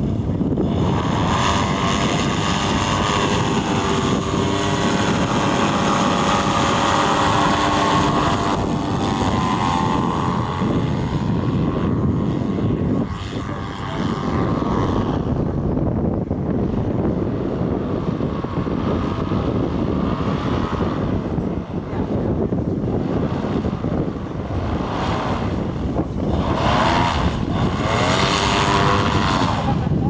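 Paramotor trike's engine and propeller running in flight, the pitch rising and falling as it swings around and passes close by, with wind noise on the microphone.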